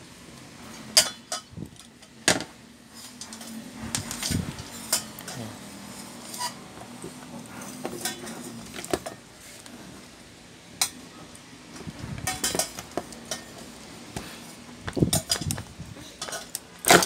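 Irregular clicks, clinks and knocks of an electric fan's plastic and metal parts being handled and taken apart by hand, the switch housing and wiring worked loose beside the motor on the workbench. Several sharper knocks come about a second in, around two seconds in, near fifteen seconds and just before the end.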